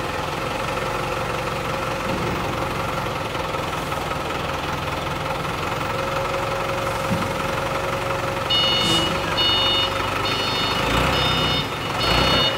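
Forklift engine running steadily. About two-thirds of the way in, its reversing alarm starts beeping, roughly one beep a second. There are a couple of low thumps near the end.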